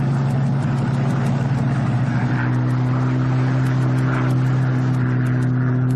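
Supermarine S6B racing seaplane's Rolls-Royce R V12 aero engine running at full power on its takeoff run across the water, a steady loud drone whose tone changes slightly about two seconds in.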